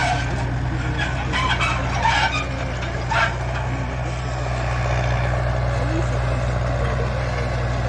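Massey Ferguson tractor engine running steadily under a low drone, with a few knocks and rattles in the first three seconds or so.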